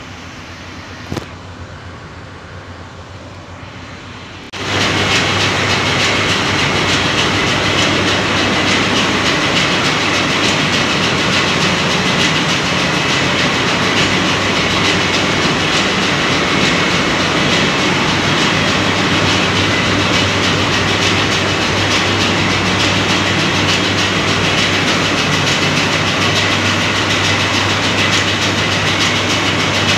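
A ship's engine room machinery, with its generators and compressors running, makes a loud, steady din with a constant low hum. The din starts abruptly about four and a half seconds in, after a quieter steady hum of air conditioning in the control room.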